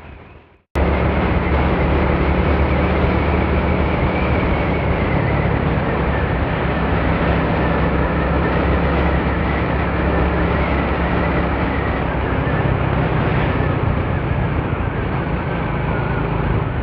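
Motorcycle engine running steadily while riding, with wind and road noise over it. The sound cuts out completely for a moment and comes back just under a second in.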